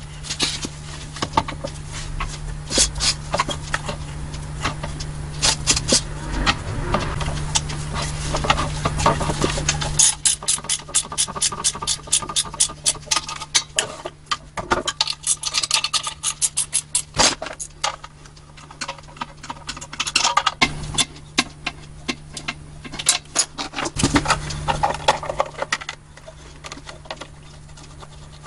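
Ratchet wrench clicking in quick runs, with hand tools clinking against metal, as the air compressor's pump is bolted back onto its new tank. A low steady hum comes and goes underneath.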